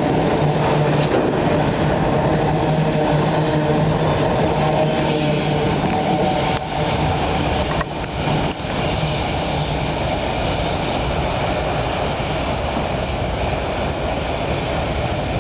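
CSX autorack freight train rolling past, its steel wheels running on the rails in a steady loud rumble and clatter. A low steady hum fades out about halfway through.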